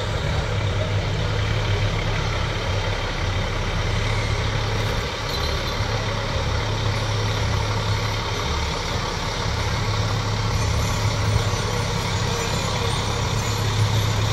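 Fire truck's diesel engine running with a steady low rumble as the truck creeps slowly along the street.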